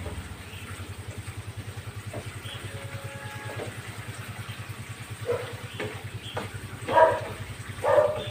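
Coconut milk boiling in a frying pan on a gas burner and being stirred with a spatula, with small scraping clicks against the pan: the milk is being cooked down into latik. A steady low pulsing hum runs underneath, and a few louder sounds come near the end.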